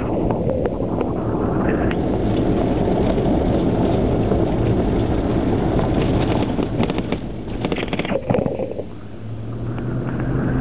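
Vehicle driving on a gravel road, heard from inside the cabin: steady engine hum and tyre roar with loose stones crackling under the tyres. The noise eases off about eight seconds in, then builds again.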